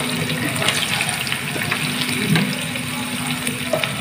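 Anchovies deep-frying in hot oil, a steady sizzle with crackles, and a few knocks of a slotted spoon against the pan as the fish are turned.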